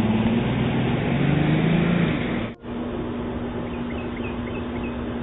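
A car engine revving and pulling away, heard through a doorbell camera's narrow-band microphone. About two and a half seconds in it cuts off abruptly to quieter outdoor background with a steady hum and a few faint high chirps.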